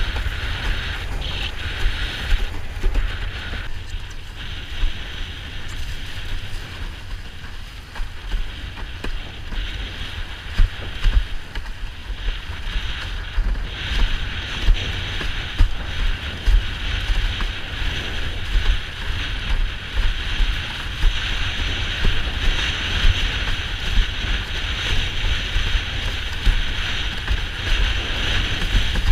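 Wind rumbling on a GoPro's microphone and water hissing under a windsurf board sailing across choppy water, with irregular knocks and splashes as the board hits the chop.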